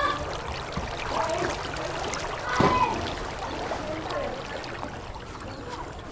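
Water flowing steadily along a concrete irrigation channel, with a few short, faint calls over it.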